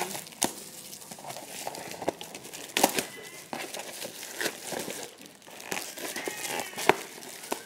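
Plastic courier mailer bag crinkling and rustling as it is opened and a cardboard box is worked out of it, with many sharp crackles and a few louder snaps.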